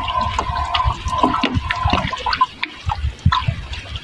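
Water lapping and splashing against the hull of a small boat, with small knocks and a faint steady whine through the first half.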